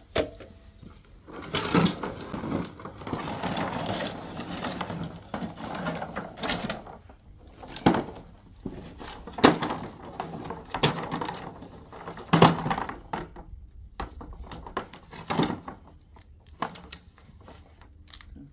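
Handling noise: irregular knocks and clinks with rustling and scraping between them, as of pipe parts and tools being moved about.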